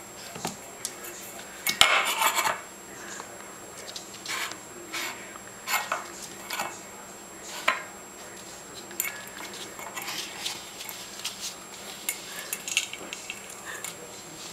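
French bulldog puppy eating dry kibble from a stainless steel bowl: kibble rattling and the metal bowl clinking and scraping in irregular bursts, the loudest clatter about two seconds in.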